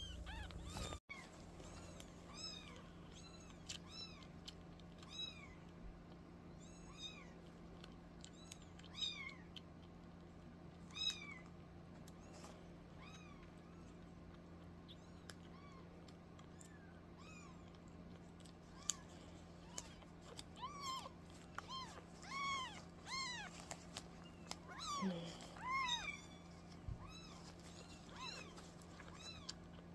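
Kittens mewing in short, thin, high-pitched calls, about one every second or two at first and coming thick and fast near the end, some of them lower.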